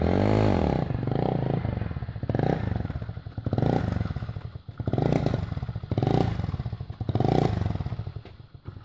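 Motorcycle engine revved again and again: about seven throttle blips, one every second or so, each rising and falling in pitch, dying away near the end.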